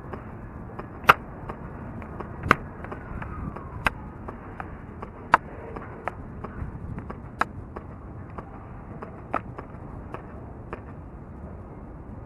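Red Jacket CO2 airsoft pistol firing single shots at a slow steady pace: about seven sharp cracks roughly a second and a half apart, with fainter clicks between them. A steady background hum runs underneath.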